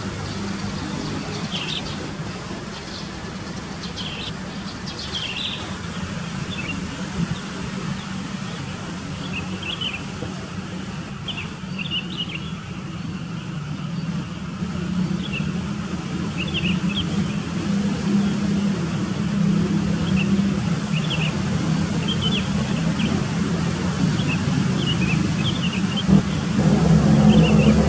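Small birds chirping in short, scattered calls, over a low steady hum that grows louder and steps up near the end.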